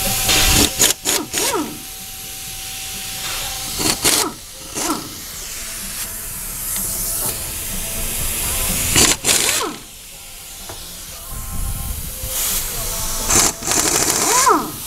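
Small cordless power tool backing the T30 Torx bolts out of the camshaft bearing caps on a 3.6 Pentastar V6 cylinder head, in four short runs. Each run is a whir that rises and falls in pitch.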